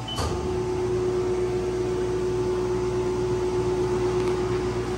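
A short beep and a click, then a Haas CNC mill's spindle starts and runs with a steady hum as it turns an edge finder.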